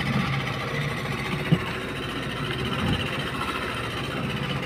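Fishing boat's engine running steadily as the boat motors after a hooked tuna, with one short sharp knock about a second and a half in.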